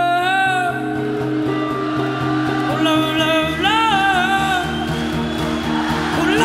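Live band music: a sung vocal line with long, sliding held notes over guitar and a steady low pulsing beat.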